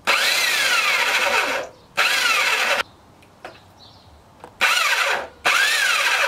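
Corded electric drill mounted to turn a scooter wheel, switched on and off in four bursts, the first the longest; each time its whine climbs as the motor spins up and drops as it slows.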